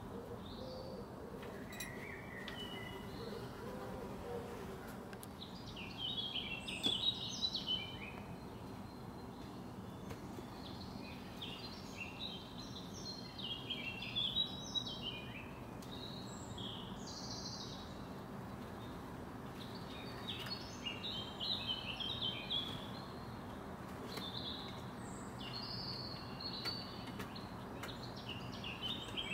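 A songbird sings several quick phrases of high, fast-changing notes, a few seconds apart, over a steady background hum.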